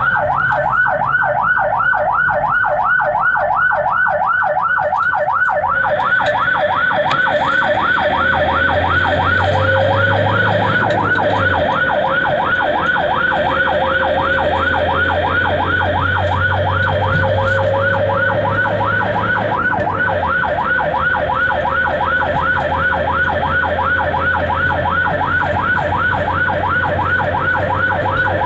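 Ambulance electronic siren in fast yelp mode: a rapid rising-and-falling wail, about three to four sweeps a second, heard from inside the ambulance's cab, with the engine droning underneath.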